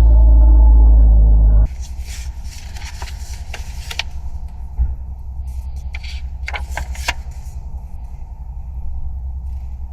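Acoustic guitar music that cuts off abruptly about one and a half seconds in, leaving a steady low rumble with scattered light clicks and taps.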